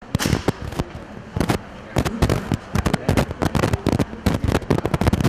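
Press camera shutters clicking rapidly and irregularly, several clicks a second, often overlapping in quick clusters.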